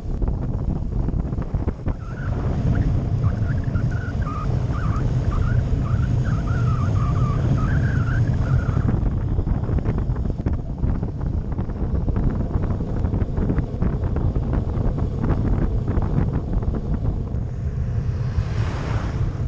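Wind buffeting the microphone of an action camera on a moving road bike, a steady low rumble with tyre and road noise. Near the end a car passes with a brief rising-and-falling swish.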